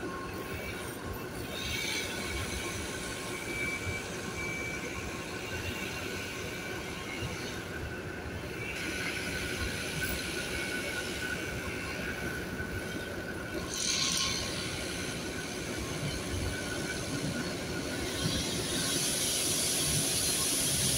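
Diesel locomotive running slowly into a station, its rumble growing louder as it nears. Bursts of high-pitched hiss and squeal come at about 2, 9 and 14 seconds in, and again from near the end.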